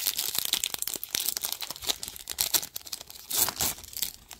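Foil wrapper of a trading-card pack crinkling and tearing as it is opened by hand, with a louder burst of rustling near the end.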